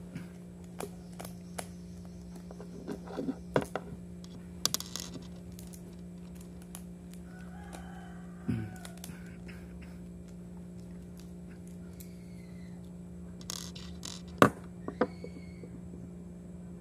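Small metallic clicks, taps and scrapes of a screwdriver and loose parts being worked in a Daiwa spinning reel as it is taken apart, coming in scattered bunches, the sharpest click near the end. A steady low hum runs underneath.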